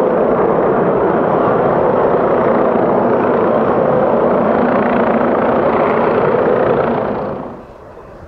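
Panavia Tornado IDS jet, its two RB199 turbofans running at climb power, passing close overhead as it climbs away after a touch-and-go. The loud jet noise stays steady, then drops suddenly near the end to a much fainter jet sound from the aircraft approaching to land.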